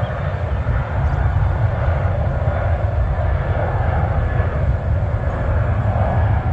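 Twin-engine business jet on its takeoff roll, its turbofan engines at takeoff power: a steady, loud engine noise with a heavy low rumble.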